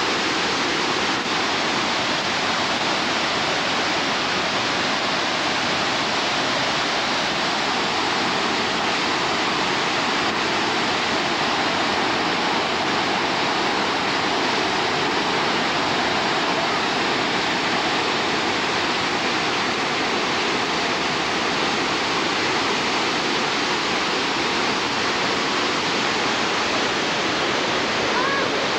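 Waterfall rushing, a steady, unbroken wash of falling water.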